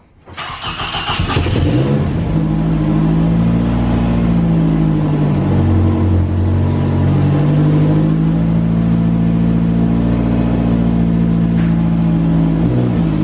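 Car engine running at steady raised revs, its pitch holding level and then dipping and rising briefly near the end.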